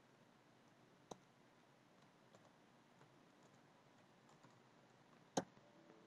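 Near silence with computer keyboard clicks: a single keypress about a second in, a few faint taps, then a sharper key click about five seconds in.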